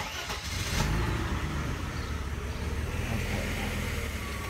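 Mercedes-Benz M103 straight-six engine starting warm, catching within about the first second and settling into a steady idle.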